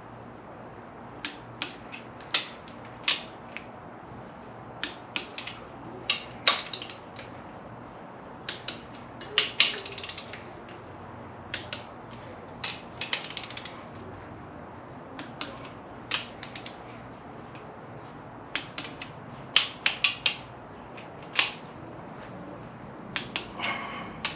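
Click-type torque wrench ratcheting and clicking again and again as bolts in a 1JZ-GTE bottom end are brought to 33 ft-lb in sequence: each click is the wrench breaking over at its set torque. Sharp separate clicks, some in pairs and quick runs.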